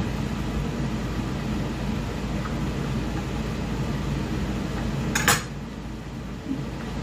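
Chef's knife cutting carrots on a wooden cutting board, with one loud clatter about five seconds in, over a steady background hum.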